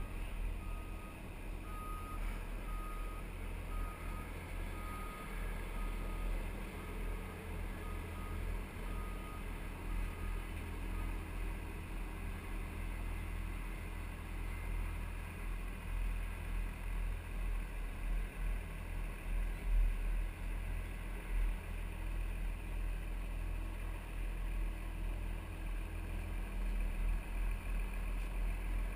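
A vehicle's reversing alarm beeping about once a second, stopping after about eleven seconds, over a steady low rumble.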